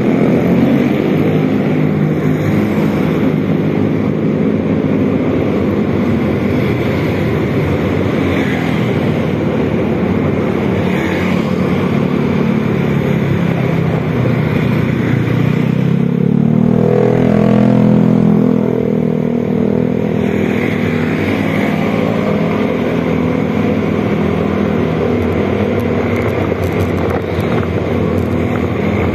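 Motorcycle engine running while riding in traffic, mixed with steady wind and road noise. About sixteen seconds in, a stronger engine note rises above the rumble for a few seconds.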